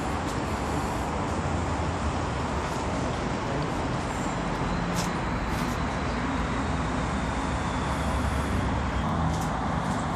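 Aerosol fire suppression generator discharging: a steady hissing rush as its chemical reaction pushes out white aerosol until the compound is used up, with a few light clicks.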